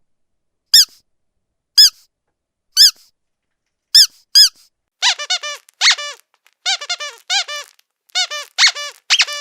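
Squeaky dog toy being squeezed. It gives single squeaks about once a second, each rising and then falling in pitch. From about halfway it gives quick runs of several squeaks in a row.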